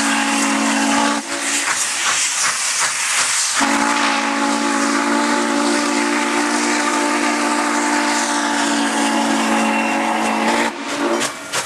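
Steam whistle of Norfolk & Western J-class 4-8-4 No. 611 sounding a loud chord in long blasts. One blast cuts off about a second in, and the next starts about two seconds later and is held for about seven seconds. Steam hiss and the running train are heard underneath, and the whistle breaks up near the end as the locomotive nears the crossing.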